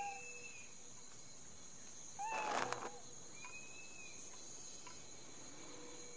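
Steady high chirring of insects, like crickets, with a few short strained cat calls over it. The loudest call comes about two and a half seconds in, with a brief scuffle of noise.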